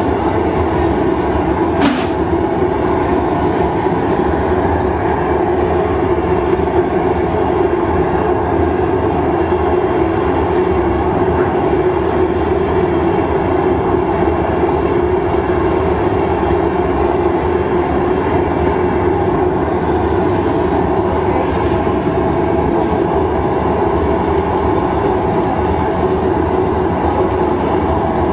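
Steady roar of a glassblowing studio's gas-fired furnace burners, with one sharp click about two seconds in.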